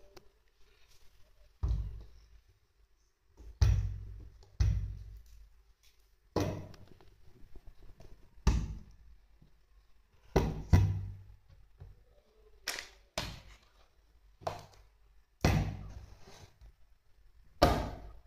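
Heavy thuds, about a dozen, struck at an uneven pace one to two seconds apart, each deep and dying away quickly.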